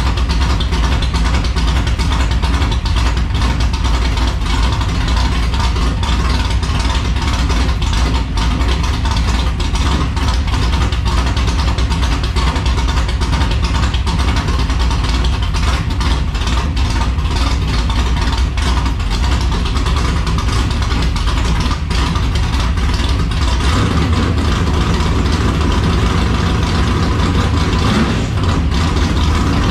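Chevrolet S10 pickup's 383 stroker V8 running steadily at idle.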